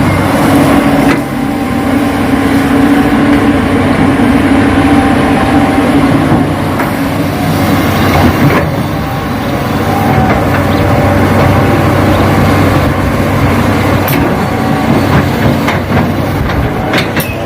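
Radio-controlled Hitachi excavator model working, its motors and pump running with a steady mechanical drone, and a few sharp clicks near the end.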